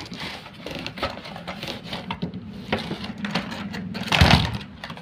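Cardboard box and plastic packaging rustling and clicking as a toy RC stunt car is pulled out of it, with a louder burst of rustling about four seconds in.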